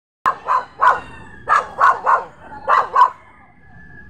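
Dog barks, about eight sharp barks in quick clusters of two or three, then stopping near the end.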